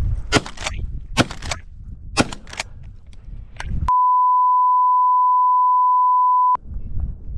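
Three sharp shotgun reports about a second apart at a flushing prairie chicken, over wind on the microphone. Then a loud, steady single-tone censor bleep for about two and a half seconds, starting and stopping abruptly.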